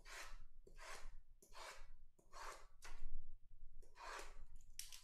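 A small knife blade slitting the plastic wrap along the edges of sealed trading-card boxes: a run of six or so short hissing strokes, roughly one every three-quarters of a second.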